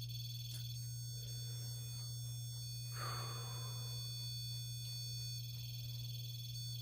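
A steady low hum with thin, high-pitched electronic tones above it, and a brief soft whoosh about three seconds in.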